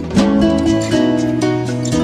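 Background instrumental music with plucked strings, notes changing every half second or so.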